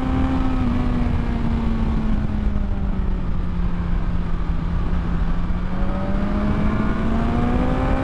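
2022 BMW S1000XR's 999 cc inline-four engine under way: the revs sink slowly for a few seconds, then climb steadily again from a little past the middle. Wind rushes over the helmet-camera microphone underneath.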